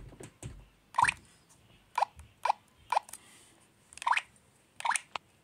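VTech Kidizoom toy camera's speaker playing short rising electronic bloop sounds, about six of them at uneven intervals, as its buttons are pressed.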